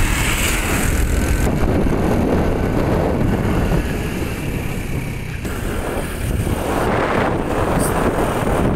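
Wind buffeting the microphone on a moving motorcycle, with the bike's engine running underneath. An oncoming tractor passes close by in the first second or so.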